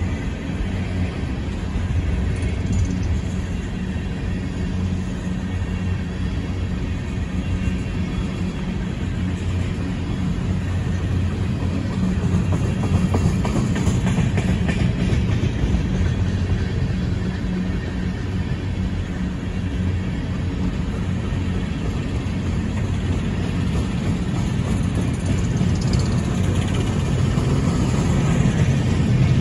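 Empty coal hopper cars of a freight train rolling past: a steady rumble of steel wheels on rail, with a low steady hum underneath.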